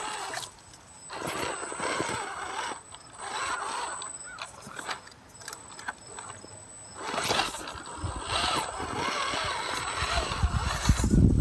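Electric motor and geared drivetrain of a scale RC rock crawler (Vaterra Ascender chassis with SCX10 axles) whining in short stop-start throttle bursts as it crawls up rock, the pitch wavering with load, with a few sharp knocks of the tyres and chassis on stone.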